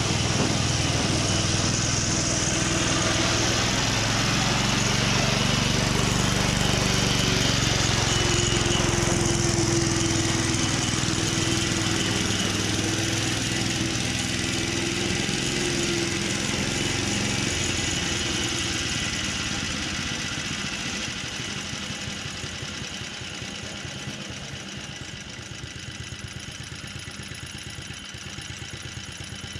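Petrol engine of a vintage Ransomes Marquis cylinder lawn mower running steadily, then gradually fading over the second half.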